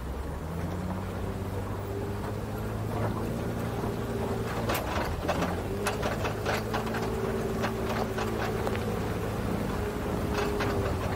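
Pickup truck engine running at a steady low pitch while driving slowly up a dirt trail, with road noise under it. About halfway through, and again near the end, there are clusters of sharp clicks and clattering knocks, typical of gravel and rocks under the tyres or the body rattling over bumps.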